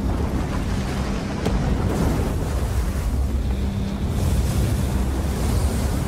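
Film sound effects of a concrete dam collapsing: a loud, continuous low rumble of crashing concrete and falling rock, with a rushing noise like surging water over it.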